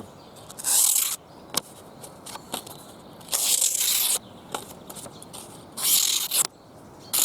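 Wavy-edged blade of a Victorinox Soldier pocket knife slicing through a sheet of paper three times, each cut a short rasping tear of under a second. The edge is dulled from wood work and no longer slices the paper cleanly or easily.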